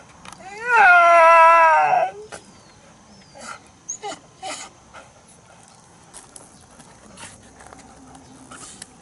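An old dog gives one long, talking-like call about a second in, rising quickly in pitch and then sliding slowly down for about a second and a half. A few faint short sounds follow.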